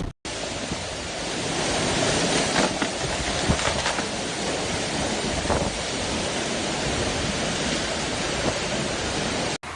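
A steady rushing noise with no distinct events, of the kind made by wind, heavy rain or surf.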